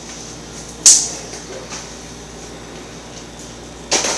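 Kitchen items being handled: a sharp clack about a second in, the loudest sound, and another near the end, over a low steady hiss.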